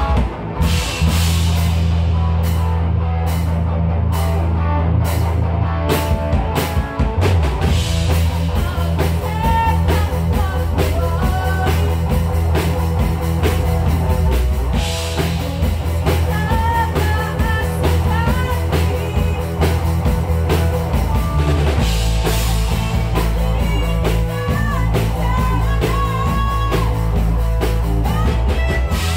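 Live rock band playing: drum kit, bass and electric guitar, with a run of drum strokes in the first few seconds and a singer's vocals coming in from about nine seconds.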